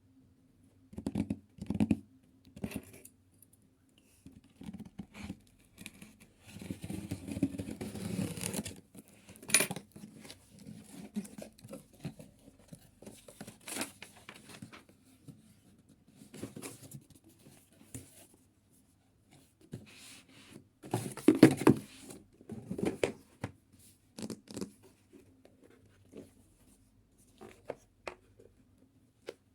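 A tablet's retail box and its packaging being opened and handled by hand, with tearing, scratching and crinkling of paper and plastic and light knocks of cardboard, in irregular bursts. A longer stretch of rustling comes about a quarter of the way in, and the loudest handling comes about two-thirds of the way through.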